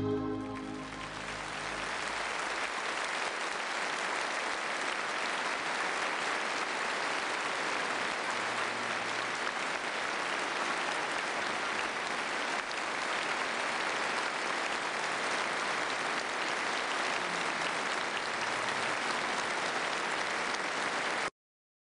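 Audience applauding steadily for about twenty seconds as the song's last organ-backed notes fade in the first second. The applause cuts off abruptly near the end.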